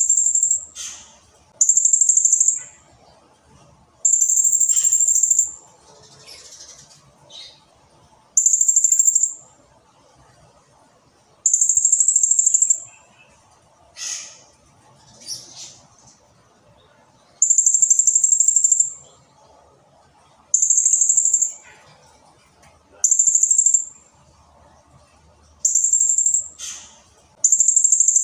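Blue-crowned hanging parrot (serindit) calling over and over: very high, shrill trilled calls, each about a second long, coming every two to three seconds, with short chirps in between.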